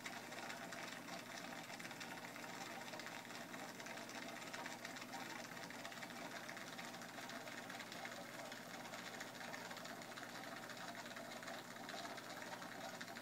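Aquarium pump motor running with a steady, even hum.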